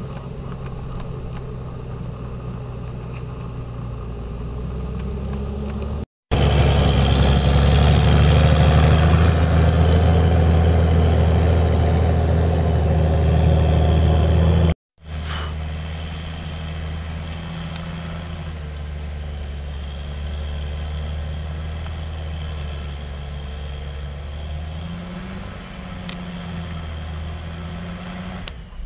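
Fendt 930 Vario tractor's diesel engine running steadily under heavy load while pulling an eight-furrow reversible plough through wet ground. It is heard in three cut-together takes, the middle one much louder and closer, and the engine note wavers up and down a little near the end.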